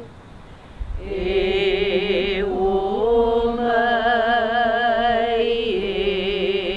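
A Hawaiian chant (oli) voiced in long held notes with a wavering vibrato. It breaks for a breath at the start, resumes about a second in, and steps to new pitches a few times.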